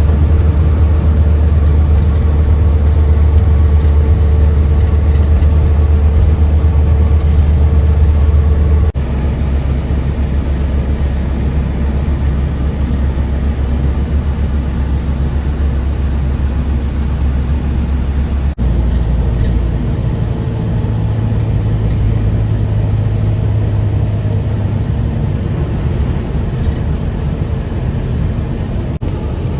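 Steady, loud low vehicle rumble with no speech, changing abruptly in level and pitch about 9 seconds and about 19 seconds in.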